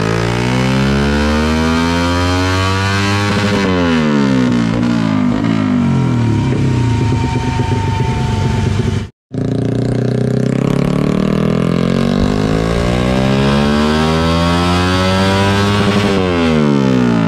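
Modified Yamaha Y15ZR single-cylinder four-stroke engine running on a motorcycle dyno, making two full-throttle pulls through an aftermarket exhaust. On each pull the revs climb steadily for several seconds and then fall away as the throttle closes. The two pulls are split by a brief break about halfway through.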